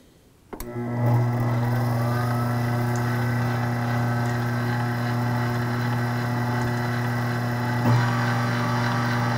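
Breville Scraper Mixer Pro stand mixer's 550-watt motor starting with a click about half a second in, winding up over about a second, then running at a steady speed with an even hum and the paddle turning. A brief bump in the sound near the end.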